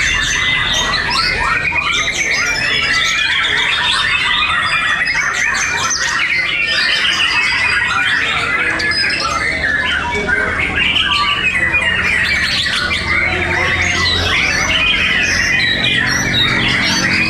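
Several white-rumped shamas (murai batu) singing at once in competition cages: a dense, unbroken tangle of overlapping fast song phrases.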